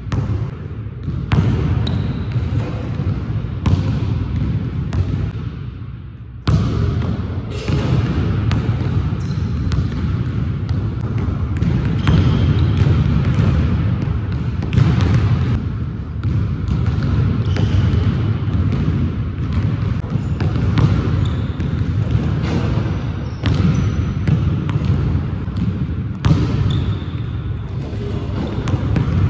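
Basketball bouncing on a hardwood gym floor, with scattered knocks and footfalls from dunk attempts, over a steady low rumble. The sound drops away and comes back abruptly about six seconds in.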